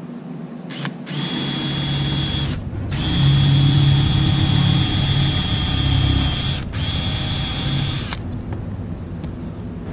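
Cordless drill boring holes through thin sheet metal into a wooden block beneath, with a steady high motor whine. There is a brief tap on the trigger, then three runs with short pauses between them; the middle run is the longest and heaviest.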